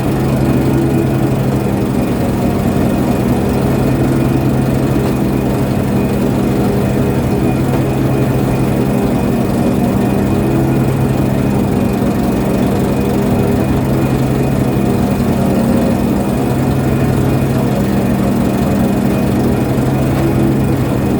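Ship's engine running at a steady, even speed with a deep hum.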